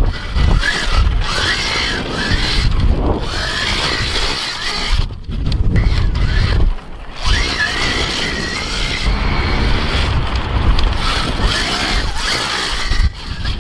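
Electric dirt bike with a sand paddle tire being ridden hard on sand: the electric motor gives a high whine that rises and falls with the throttle, over heavy wind rumble on the microphone. The sound breaks off briefly a few times between shots.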